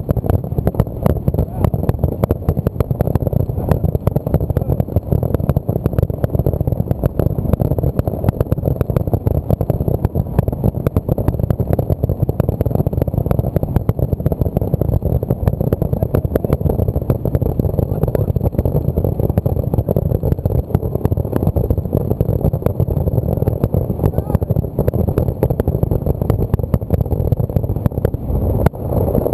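Fireworks finale: a dense, unbroken barrage of aerial shell bursts, many a second, over a continuous low rumble.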